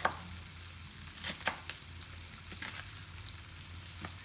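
Chef's knife chopping baby bok choy on a wooden cutting board, a handful of sharp, irregularly spaced chops, over the steady sizzle of onions stir-frying in a hot wok.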